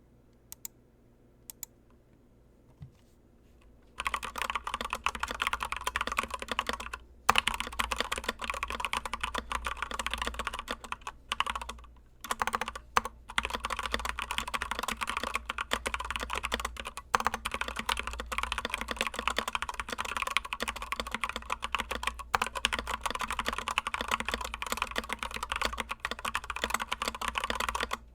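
Mechanical keyboard with stock Gateron Yellow linear switches, not lubed or filmed, being typed on. A few lone keypresses at first, then about four seconds in fast continuous typing begins, with short pauses.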